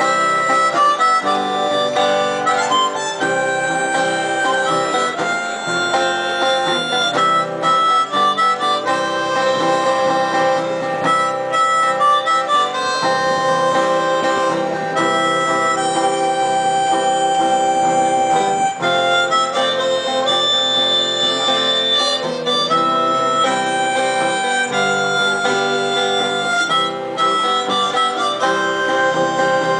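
Harmonica played into a microphone, carrying a melody of held and shorter notes, some held for a second or two, over an acoustic guitar accompaniment.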